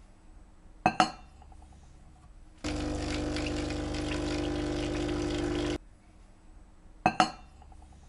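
De'Longhi Dedica EC685 espresso machine's pump running steadily for about three seconds with a low hum, starting and stopping abruptly, as espresso is pulled into a glass. Two short sharp clicks, one about a second in and one near the end.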